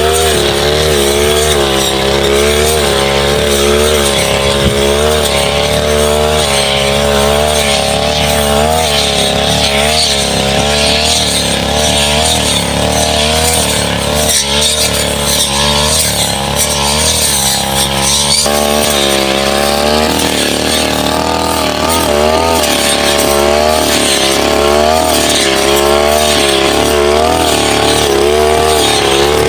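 Brush cutter engine running at high speed for the whole stretch, its pitch wavering and dipping again and again as the blade bites into saplings and brush and then recovers.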